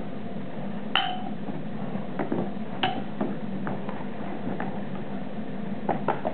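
A series of sharp metallic clinks at uneven intervals, the first about a second in and a cluster near the end. Two of them ring briefly, like a steel blade being struck. A steady low hum runs underneath.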